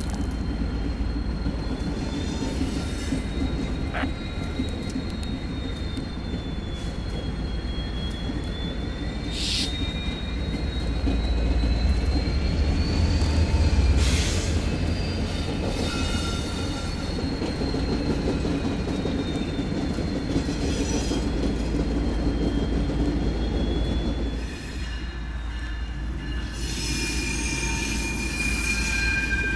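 Diesel freight locomotive passing with a deep engine rumble, loudest about halfway through. The train's wheels squeal on the rails in a long, thin, wavering high tone.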